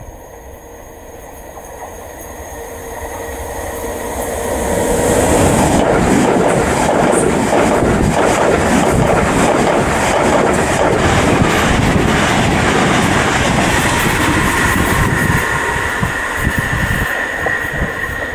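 Southern Class 377 electric multiple unit passing at speed. The rush of its approach builds over about five seconds, then wheels clatter over the rail joints in quick clicks as the carriages go by. The noise eases near the end as a high steady whine comes in.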